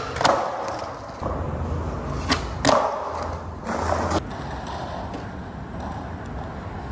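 Skateboard riding: the wheels roll with a low rumble, and the board cracks sharply three times, once just after the start and twice close together between two and three seconds in. The rolling fades out about four seconds in.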